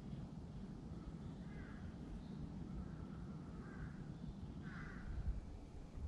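Crows cawing in the forest, about three calls, the last the loudest, over a steady low rumble.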